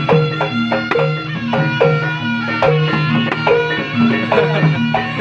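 Traditional folk music with percussion: drum strikes about twice a second under sustained pitched melody notes, the kind of music that accompanies a barongan performance.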